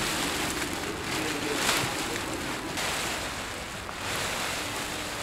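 Tent fabric rustling as it is handled over the pole frame, under a steady rushing noise with a few swells, like wind on the microphone.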